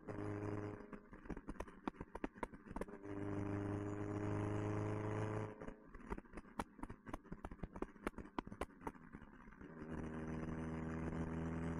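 A 1969 Alfa Romeo Spider's four-cylinder engine, fitted with an Alfaholics exhaust, runs with a steady, unchanging note while cruising. The note comes and goes in spells of a few seconds, and between them come bursts of sharp clicks and knocks.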